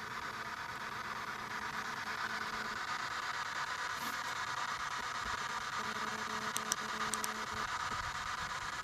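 Steady static-like hiss, with a faint low hum for a second or two past the middle and a few faint ticks.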